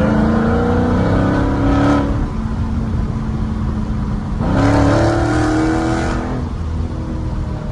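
Dodge Challenger SRT 392's 6.4-litre HEMI V8 heard from inside the cabin, accelerating in two pulls. The pitch rises for about two seconds and breaks off, holds a lower steady drone, then rises again past the middle and drops back.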